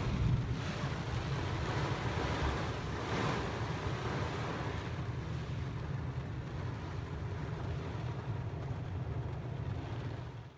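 Steady rush of heavy rain and wind with a strong low rumble, cutting off suddenly at the end.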